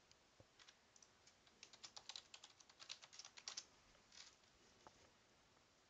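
Faint computer keyboard keystrokes: a quick run of typing from about half a second in to around three and a half seconds, followed by a few single clicks.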